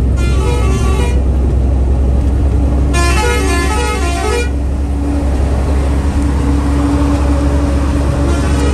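A truck's multi-note musical horn plays a short stepping tune twice: for about a second at the start, then for about a second and a half from three seconds in. Under it runs the steady low rumble of a heavy diesel truck cruising on the highway, heard from inside the cab.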